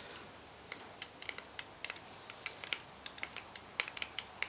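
Small, irregular metallic clicks and ticks as a hand-forged screw key is turned in the threads of a homemade padlock's bottle-screw mechanism, working the lock back toward locked.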